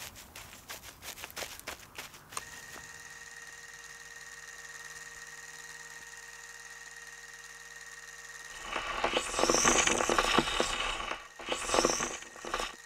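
Footsteps crunching on dry leaves for the first couple of seconds, then a steady hum. From about nine seconds in, a much louder mechanical whirring like a small motor runs in two spells, with a short break near the end.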